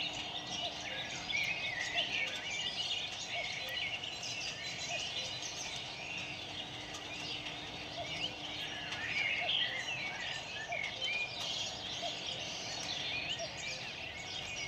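Many small birds chirping and twittering together in a dense, continuous chorus over a steady background hiss.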